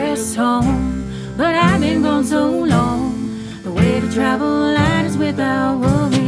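Acoustic americana band playing a song live: plucked guitar and low sustained string notes, with a gliding melody line over them.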